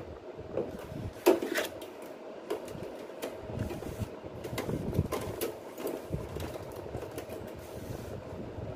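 Irregular clicks and knocks of hands working on the plastic casing and parts of an opened split air-conditioner indoor unit, over a faint steady hum.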